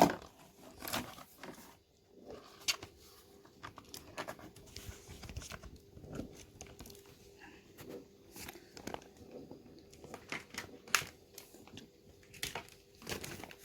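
Scattered small clicks, taps and crinkly rustles of hands handling an opened laptop and its parts, over a faint steady hum.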